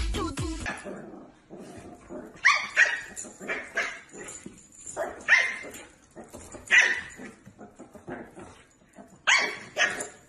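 A dog barking in short, high-pitched yaps, about half a dozen in clusters a few seconds apart. Dance music cuts off in the first second.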